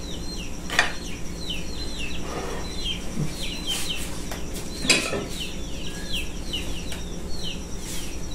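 Birds chirping rapidly, short high chirps that each fall in pitch, about three or four a second, with a couple of sharp clinks, the loudest about five seconds in.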